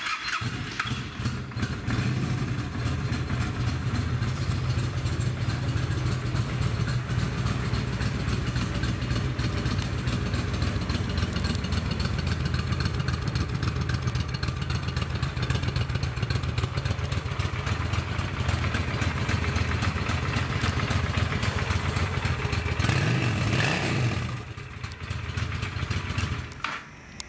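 A 2009 Honda Shadow Spirit 750's liquid-cooled V-twin idles steadily through its chrome staggered pipes. Near the end it grows louder briefly, then the sound drops away.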